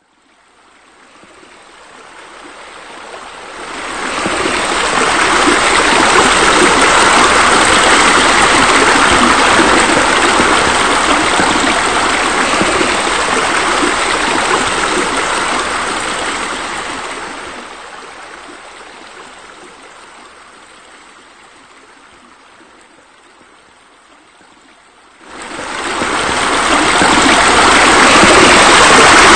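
Steady rush of water splashing from pool water features, a spa spillover and wall jets falling into the pool. It swells in over the first few seconds, eases off after about 17 seconds, and comes back suddenly about 25 seconds in.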